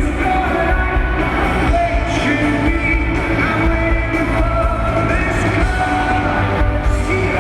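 Live rock band playing with a lead vocalist singing, loud and heavy in the bass.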